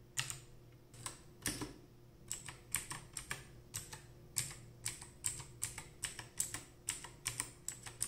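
Key presses on an HP GK320 mechanical keyboard with clicky blue switches: a few separate clicks at first, then a steadier run of about two or three clicks a second from about two seconds in.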